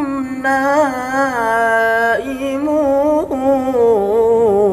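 A young male qari's voice in melodic Qur'an recitation (tilawah), holding one long ornamented melisma with wavering turns. It breaks briefly twice and settles onto a lower pitch near the end.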